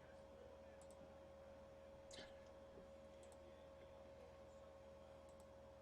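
Near silence: a faint steady hum, with a few faint computer mouse and keyboard clicks as a list is copied and pasted into a spreadsheet; the most distinct click comes about two seconds in.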